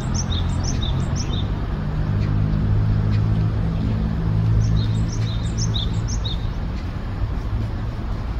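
A great tit singing its spring song to attract a mate: a quick, even run of two-note phrases, heard at the start and again about five seconds in. Under it runs a steady low rumble.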